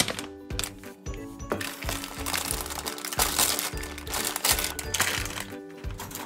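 Plastic packaging of a fried-tofu pouch pack crinkling as it is handled and opened, loudest from about a second and a half in until shortly before the end, over cheerful background music.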